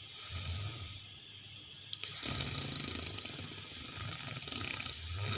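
Utahraptor creature sound effect: two short low growls, then from about two seconds in a longer, louder growl with breathy hiss.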